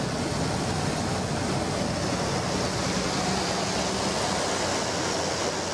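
Steady drone of a light aircraft's engine and propeller heard inside the cabin, with a faint low hum under an even rush of air noise.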